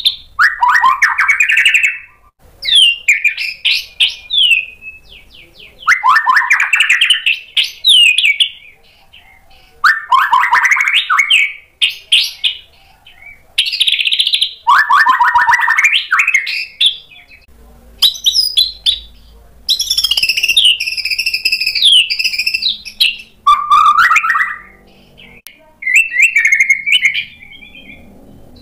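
White-rumped shama (murai batu) singing loud phrases about every four seconds, each a quick run of notes sweeping upward. One higher, more intricate phrase comes near the middle.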